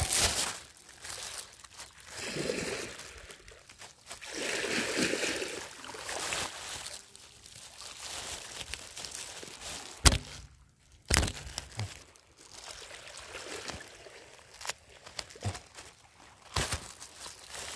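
Shallow seawater sloshing and trickling in uneven swells, with a few sharp knocks; the loudest come about ten and eleven seconds in.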